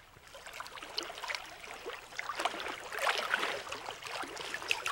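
Water gurgling and splashing softly, with many small irregular splashes and drips.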